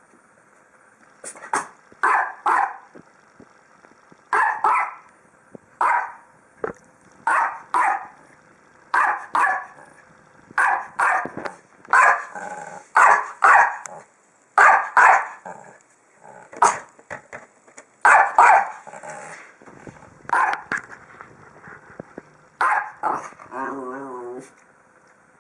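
A dog barking over and over, in quick clusters of one to three barks about every second or two, with a short wavering whine near the end.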